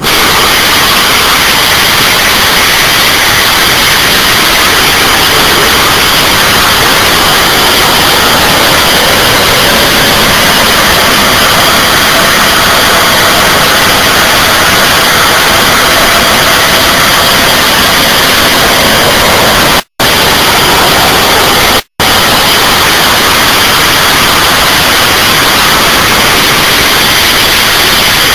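Blue Origin Goddard test rocket's engine firing from ignition through its vertical takeoff and landing: a loud, even rushing noise that starts abruptly and drops out twice for a split second about twenty and twenty-two seconds in.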